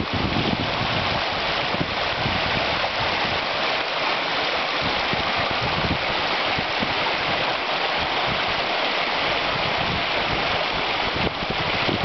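Shallow, fast-flowing river running over a stony bed, heard close: a steady, even hiss of moving water.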